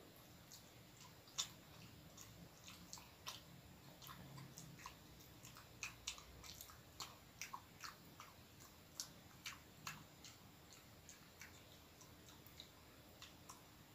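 A person chewing a soft bread roll filled with chocolate and cheese: quiet, irregular mouth clicks, a few each second.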